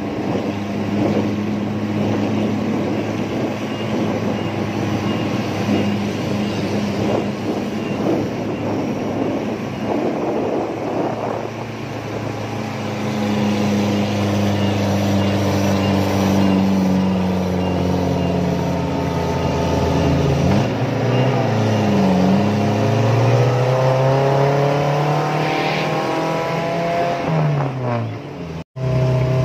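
Engine of the offroad 4x4 carrying the camera, running under way with rushing wind noise over it in the first half. From about halfway the engine note steadies, dips, then climbs steadily as it revs up, and it cuts out for an instant near the end.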